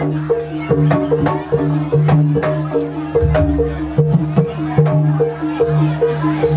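Traditional Javanese gejok lesung music for a jaranan dance: sharp wooden knocks, as of pestles pounded on a rice mortar, over a quick repeating pattern of pitched percussion notes and a low recurring tone.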